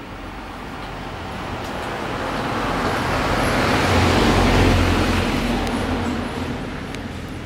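A motor vehicle passing by on a nearby road: engine and tyre noise swell, peak about four to five seconds in, then fade away.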